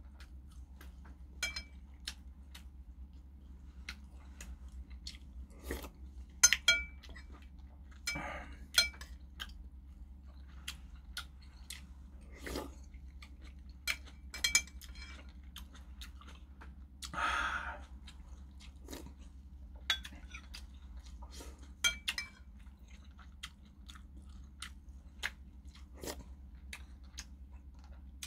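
Eating kimchi stew with a metal spoon: scattered short clinks of the spoon against porcelain bowls, some ringing briefly, between chewing and a few slurps. The longest slurp comes a little past the middle. A steady low hum runs underneath.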